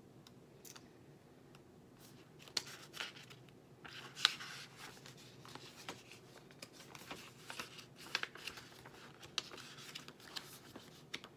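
Pages of a paperback guidebook being leafed through by hand: soft paper rustles and small flicks, busiest and loudest a few seconds in.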